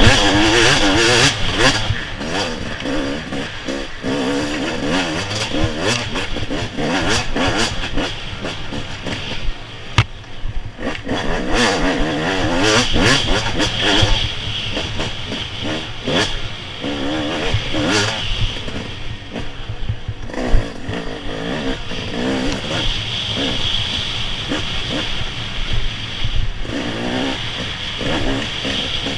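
Off-road race vehicle's engine revving hard, its pitch climbing and falling over and over, mixed with constant rushing wind noise and sharp knocks and rattles from rough ground.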